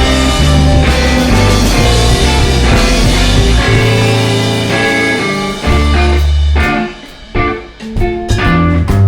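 Instrumental psychedelic blues-rock band passage with electric guitar and drum kit. About two-thirds of the way through, the band breaks into short stop-time hits with brief gaps between them.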